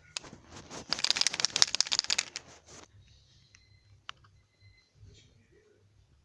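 Pencil scratching rapidly back and forth on paper for about two seconds from about a second in, then a few faint ticks and one sharp click.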